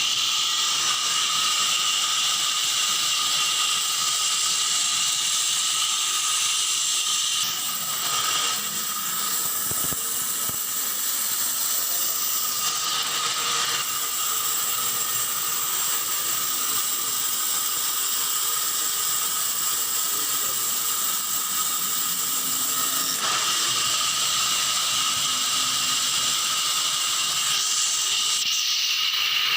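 Sawmill machinery running: a steady high hiss with a few held whining tones, shifting slightly partway through.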